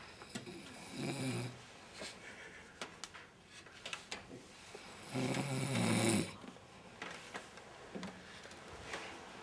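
A man snoring in his sleep: two loud snores about four seconds apart, the second one longer, with faint breaths and small clicks between them.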